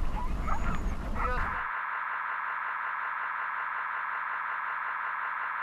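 Wind rumbling on the camera microphone under brief voices, cut off sharply about a second and a half in by a steady, unchanging electronic synth tone.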